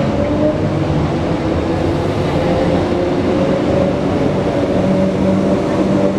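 Queensland Rail electric suburban train moving slowly along the platform: a steady rumble with a few held motor tones over it.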